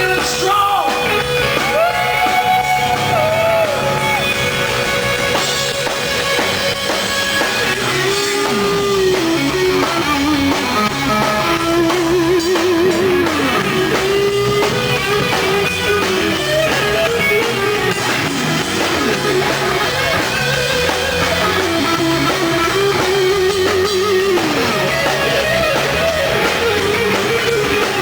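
Rock band playing: an electric guitar lead with pitch bends and wide vibrato over bass and drums.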